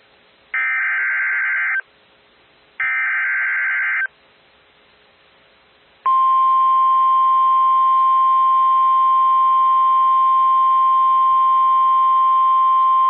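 NOAA Weather Radio Emergency Alert System alert: two SAME digital header bursts, each a warbling data tone about a second long with faint radio hiss between, then about six seconds in the steady single-pitch 1050 Hz warning alarm tone starts and holds, signalling that a warning is about to be read.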